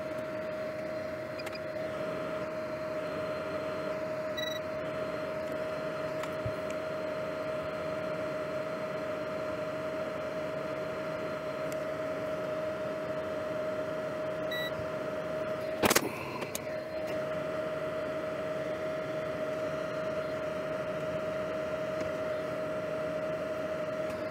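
Steady whine with a hiss from a bench fan running, with faint short beeps twice and a single sharp click about two-thirds of the way through.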